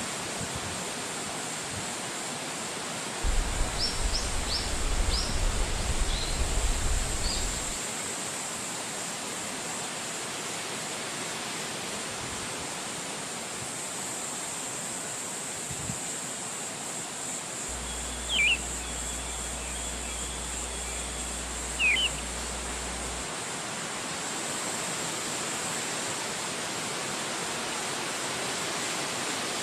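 Wind blowing through forest trees, a steady rushing hiss, with a low rumble from about three to seven seconds in. Small birds chirp briefly a few times around four to seven seconds in, and two louder short bird calls come at about 18 and 22 seconds.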